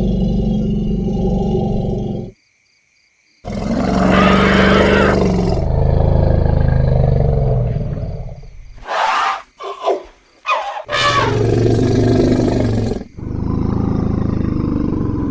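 Elephants calling: deep rumbling roars, then several short, sharp trumpet blasts around the middle, and another long roar near the end. The recording cuts abruptly between takes, with a second of silence early on.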